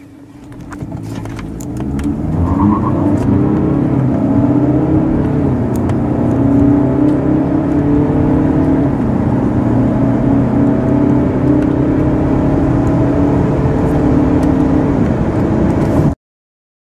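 2.0 TDI four-cylinder diesel car engine accelerating hard from a standstill through the gears, heard from inside the cabin: the engine note climbs, drops back at each upshift and climbs again. It cuts off suddenly near the end.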